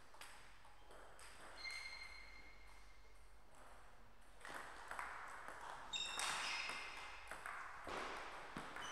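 Table tennis ball clicking off the bats and the table, several of the bounces ringing with a short high ping.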